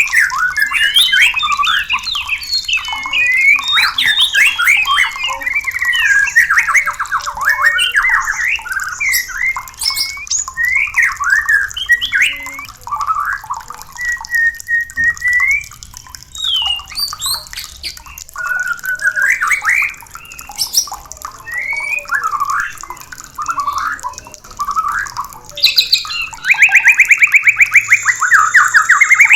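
White-rumped shama (murai batu) singing a varied song of quick whistles, glides and chattering phrases, breaking near the end into a fast, even rattle.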